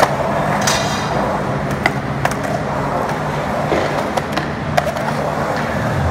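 Skateboard wheels rolling on the concrete walls of a skate bowl, a steady rumble broken by several sharp clacks of the board and trucks. The brightest, ringing clack comes about a second in, as the board reaches the lip.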